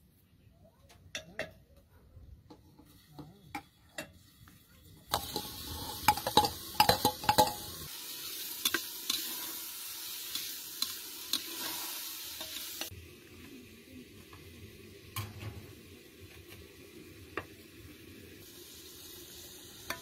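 Scattered clicks and scrapes of metal utensils and pots, then about five seconds in a loud sizzle as chopped tomatoes and onions go into hot oil in a metal pot, with sharp clinks of the spoon. The sizzle drops to a quieter, steady frying hiss about eight seconds later, with an occasional clink of the ladle against the pot.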